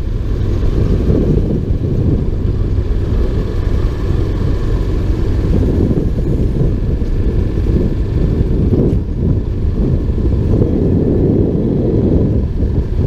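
Motorcycle riding at a steady cruising speed: its engine running under a constant heavy rush of wind buffeting the mounted camera's microphone.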